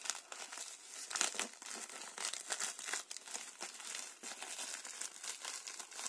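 A plastic postal mailer being torn open and handled, its plastic packaging crinkling and rustling in quick, irregular bursts.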